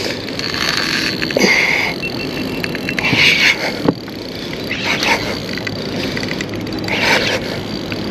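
Fishing reel wound in repeated short spells as a hooked mulloway is fought up from the bottom, with a few knocks and steady wind and water noise around it.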